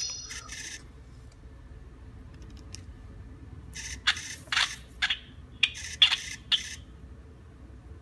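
The last notes of a Nokia 3220 ringtone stop within the first second. Then, about four seconds in, a quick run of about eight sharp clicks and scrapes, like handling or button presses.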